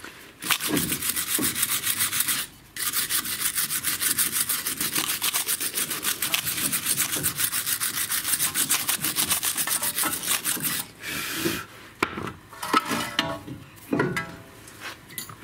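Steel wire brush scrubbing rust and dirt off the pad seats of a front brake caliper carrier in rapid back-and-forth strokes, cleaning them for the new pads, with a brief pause early on. The scrubbing stops about 11 s in and is followed by a few sharp metallic knocks and scrapes as parts are handled at the carrier.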